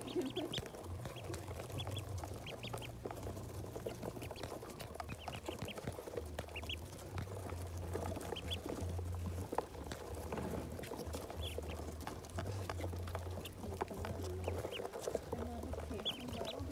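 A flock of ducklings peeping, with short high cheeps scattered all through, over a low hum that comes and goes.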